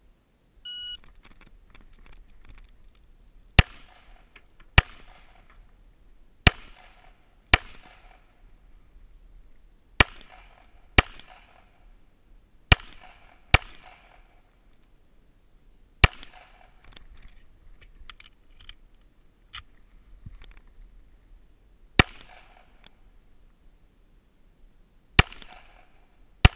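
A shot timer's start beep, then about a dozen pistol shots from a Springfield Armory Range Officer 1911 in .45 ACP. The shots come mostly in pairs about a second apart, with longer pauses between groups, and each leaves a short echo.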